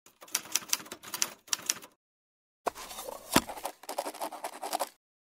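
Rapid typewriter-like clicking, a dense run of keystroke clicks in bursts, broken by a short silence about two seconds in, with one sharp louder knock about three and a half seconds in. It stops abruptly shortly before the end.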